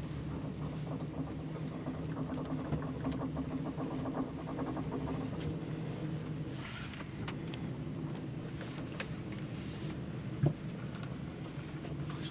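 Cabin of the Predigtstuhlbahn aerial tramway running along its ropes: a steady low hum and rumble, with a faint rattle in the first half and a single sharp knock near the end.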